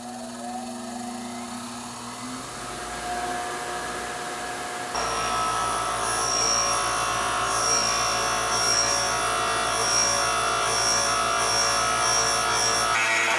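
A power tool running steadily, growing louder and changing abruptly about five seconds in.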